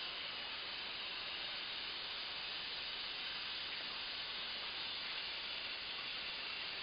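Steady hiss of steel gun parts fizzing in a hot parkerizing tank: the phosphate solution bubbling against the metal as the coating forms.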